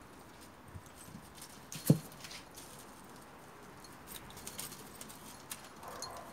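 Kittens' paws tapping and scrabbling on a tarp-wrapped box and tile floor as they swat at a dangling feather toy, with one loud thump about two seconds in as a kitten jumps up onto the box.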